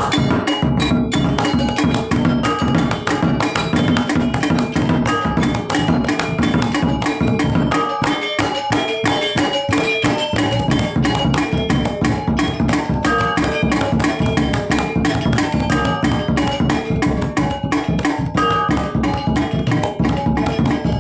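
Balinese gamelan music played to accompany topeng dance practice. Drums and pitched percussion keep up a dense, fast, busy rhythm without a break.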